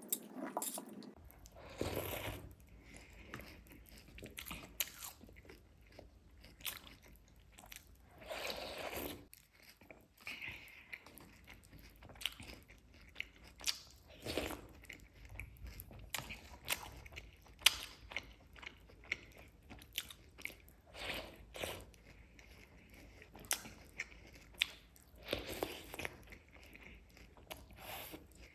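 Close-up eating sounds: chewing and crunching of cake with crunchy Chocos cereal, many small sharp clicks with a louder bite or mouthful every few seconds.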